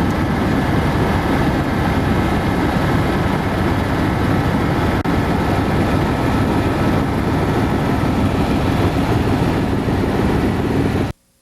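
Loud, steady helicopter noise of engine and rotor heard in the cabin, with a faint steady high whine. It cuts off abruptly near the end.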